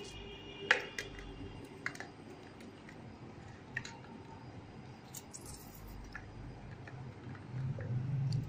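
Half a lemon being squeezed and rubbed over a whole raw fish on a steel plate: a few sharp clicks and taps, the loudest under a second in, among faint wet handling sounds. A low hum builds near the end.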